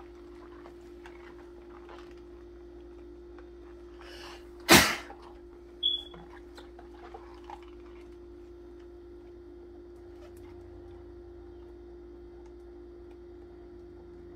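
Gloved hands quietly scrub plastic tubing with a brush under soapy water, with faint small clicks and sloshes over a steady hum. A single sharp, loud burst comes about five seconds in, then a smaller knock with a brief high squeak a second later.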